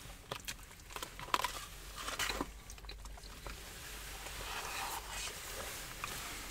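Eating sounds in a car: chewing and mouth sounds with scattered small clicks and rustles from plastic spoons, cups and food containers, mostly in the first couple of seconds.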